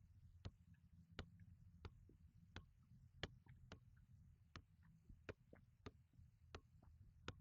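Soccer ball being juggled: faint, evenly spaced taps of the ball against the foot, about three every two seconds, over a low steady hum.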